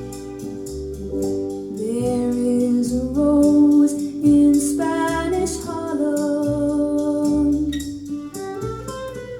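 Recorded music with a female singing voice over held instrumental notes and a steady beat, played from a vinyl record on a turntable through loudspeakers.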